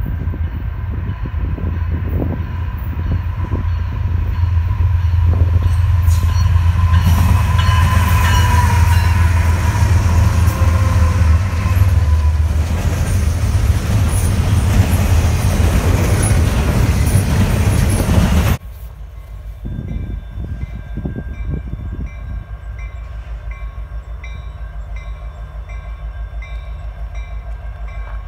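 Diesel freight locomotives going by close with a deep engine rumble, followed by a double-stack container train rolling past. After a sudden cut about two-thirds of the way in, a much quieter, steady low rumble comes from a pair of distant CN SD75I diesel locomotives approaching.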